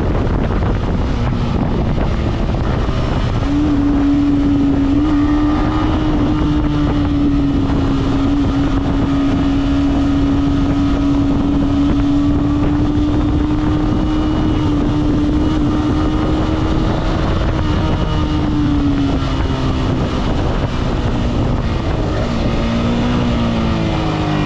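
Yamaha R15M's 155 cc single-cylinder engine through its stock exhaust, held at a steady cruising speed under a rush of wind noise on the microphone. Near the end the engine note drops in a few steps as the bike slows.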